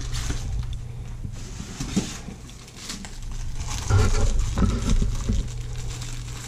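Plastic bag rustling and crinkling while a small plastic-wrapped electric skillet temperature control is handled and unwrapped, with light knocks of handling, louder from about four seconds in.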